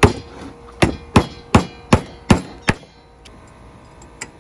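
Hammer blows fastening wire mesh onto a wooden door frame: about seven sharp strikes in the first three seconds, roughly three a second, then one faint tap near the end.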